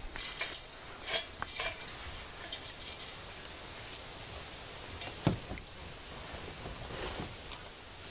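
Sticks being picked up and dropped into a stainless-steel Solo Stove wood-burning backpack stove, with irregular knocks and clinks against the metal and rustling of dry twigs. The louder knocks come about a second in and about five seconds in.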